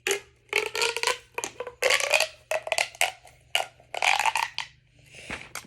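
Fidget toys being handled and played with: a run of short plastic clicks, scrapes and rattles in quick clusters.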